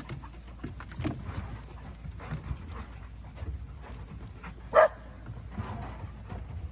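Excited dogs, with scattered short noises and one loud bark almost five seconds in.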